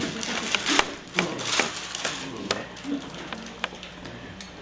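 Scattered sharp clicks and knocks with short bursts of rustling: handling noise on stage.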